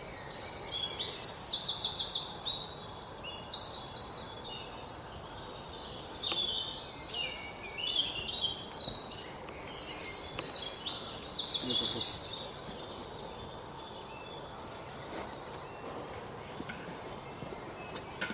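Birds singing outdoors: bursts of rapid, high trilled notes repeated in quick phrases, busy for the first few seconds and again in the middle, then dropping to a quieter background.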